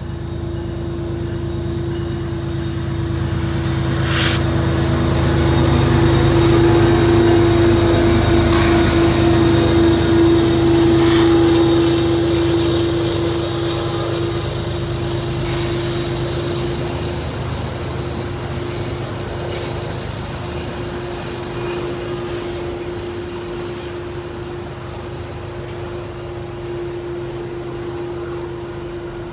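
Freight train passing: the Union Pacific diesel locomotive's engine swells to its loudest several seconds in, then fades as a long string of autorack cars rolls by. A steady hum runs under it throughout.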